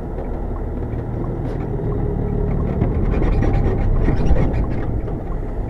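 Semi truck's diesel engine running with a low rumble, heard from inside the cab, growing somewhat louder after a couple of seconds.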